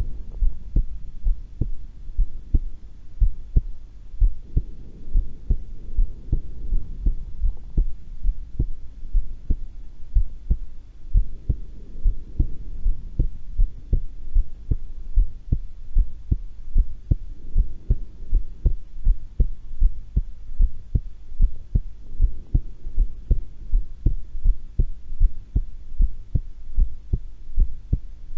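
A woman's heartbeat picked up close at the chest, at a calm resting pace: a steady, even rhythm of low paired thumps, the lub-dub of the heart sounds.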